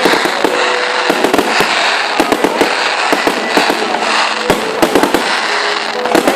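New Year's Eve fireworks display: a dense, continuous barrage of bangs and crackling from the bursting shells, several per second.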